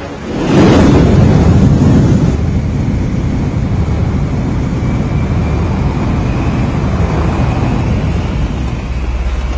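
Film sound effect of a giant jet bomber's engines igniting: a sudden loud roar about half a second in, settling into a steady deep jet rush with a faint whine slowly rising in pitch.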